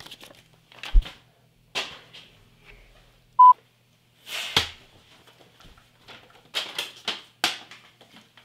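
Paper airplane flying in a small room: scattered light swishes and soft knocks, one with a low thump about a second in. A single short, loud electronic beep sounds about three and a half seconds in.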